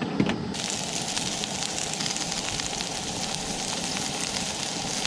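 Sliced onions frying in hot oil in a skillet, a steady sizzle that starts suddenly about half a second in as they hit the pan, the start of caramelizing them.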